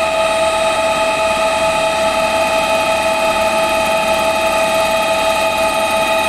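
Power take-off for an Allison transmission running under load on a test rig: a steady, high-pitched gear whine with a strong single tone and overtones over constant machine noise.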